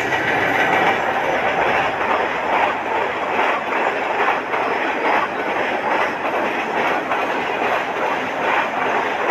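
Freight train of tank wagons rolling past close by, a steady rumble with repeated clacks of the wheels over rail joints.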